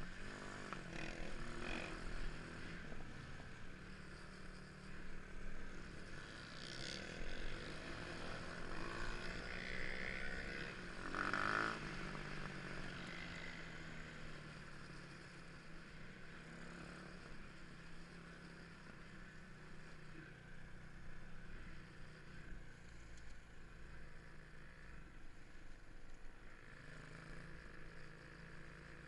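Motorcycle engine running, its pitch rising and falling with the throttle, louder for a moment around the middle.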